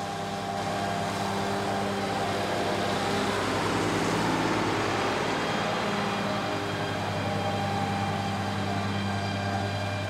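1984 Case 2094 tractor's six-cylinder diesel engine running steadily under load as it pulls a disc mower cutting hay, with a rushing hiss from the mower over the engine note. It passes close by, growing louder to its loudest about four to five seconds in, then easing off.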